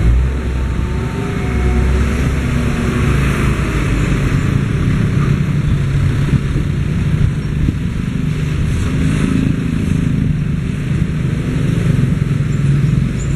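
Steady low rumble of vehicles, heaviest in the first few seconds as a passenger train's rear coach rolls past and away, with engine noise mixed in.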